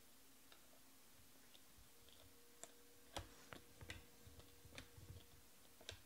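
Faint clicks and flicks of 2020 Panini Select baseball cards being slid off a hand-held stack one at a time, a few scattered at first and coming more often from about halfway through.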